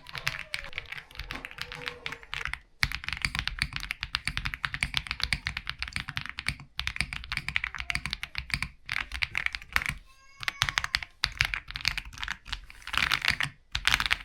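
Fast typing on an RX75 Pro mechanical keyboard: a dense run of keystroke clacks with short pauses about 3, 7, 9 and 13.5 seconds in. It has the kind of sound called super creamy.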